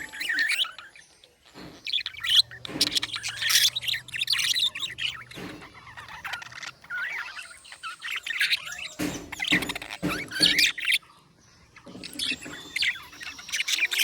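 Budgerigars chirping in quick, irregular bursts, with brief lulls about a second in and again near the end.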